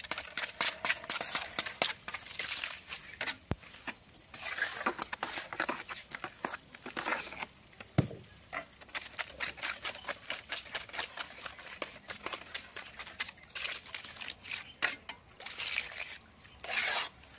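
Steel trowel scraping, pressing and slapping wet cement plaster on a wall in quick irregular strokes, with two sharper knocks, one a few seconds in and one about halfway through.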